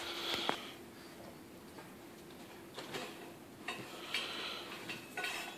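A Boston terrier and a rabbit scuffling on carpet: a few faint rustles and light clicks, over a faint steady hum.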